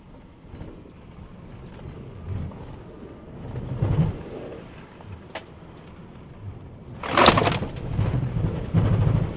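Road noise inside a Tesla Cybertruck's cabin as its 35-inch all-terrain tyres run fast over a dirt trail, a low rumble that swells with the bumps. A single small tick comes a little after five seconds, and a loud, sharp knock about seven seconds in.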